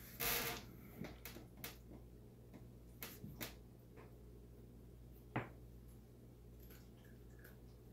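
Dice and chips being handled on a felt craps table: a brief scraping rustle at the start, then a few separate light clicks and clacks as the dice are picked up and set, the sharpest about five seconds in.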